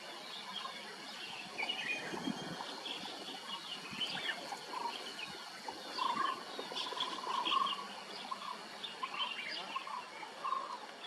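Several birds calling and chirping over a light background hiss, with a run of short, lower call notes around the middle.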